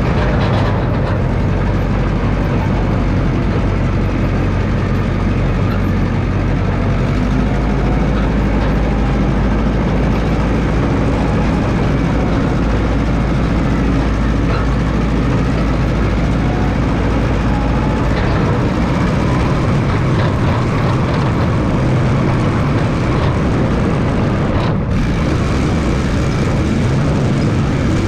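1969 Massey Ferguson 300 crawler dozer's engine running steadily as it grades dirt, its low note shifting twice.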